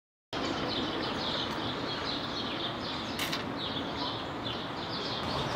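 Outdoor street ambience: a steady background hum with small birds chirping over and over in short, high calls. A brief click comes about three seconds in.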